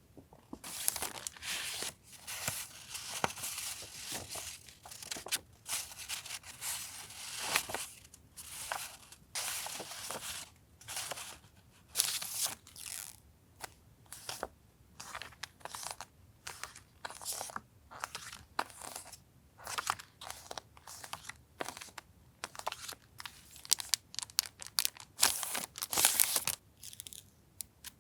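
Paper stationery and its packaging being handled, with irregular bursts of rustling and crinkling.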